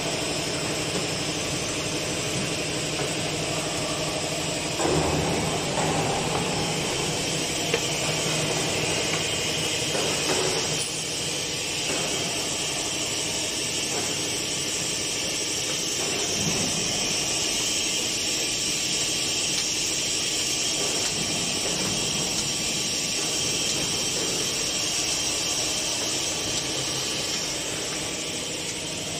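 Rotary water bottle rinsing, filling and capping machine for 3–10 L bottles running: a steady mechanical hum and rattle under a constant hiss, with a brief louder stretch about five seconds in.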